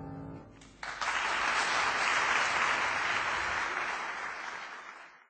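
The piano's final chord rings out and dies away, then about a second in an audience breaks into applause, which fades out near the end.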